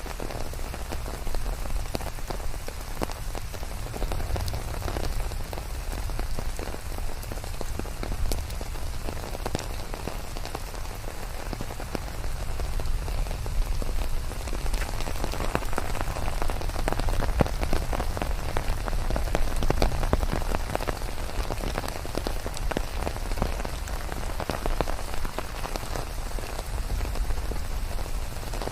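Steady rain falling and pattering on surfaces, dense drop taps over a low rumble, heavier for a stretch in the middle.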